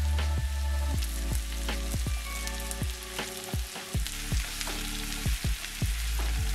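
Diced zucchini frying in oil in a pan, with a steady sizzle and the scrape of a plastic spatula stirring it, over background music.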